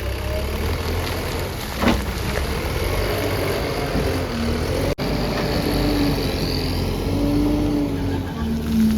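Diesel engine of a backhoe loader or tractor running steadily under load, with a wavering low pitch, a sharp knock about two seconds in, and a brief break in the sound about five seconds in.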